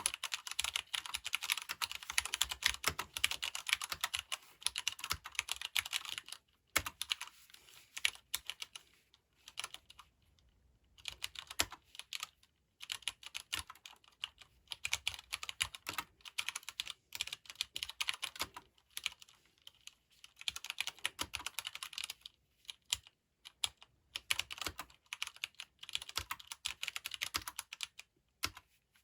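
Typing on a Leopold FC750R mechanical keyboard with Cherry MX Brown switches: fast, dense runs of non-clicky key strokes with short pauses between bursts.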